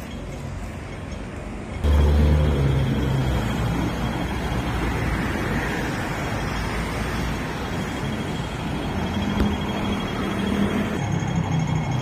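City street traffic noise; about two seconds in a nearby vehicle's engine suddenly gets louder and runs close by, with a low hum that eases into steady traffic sound.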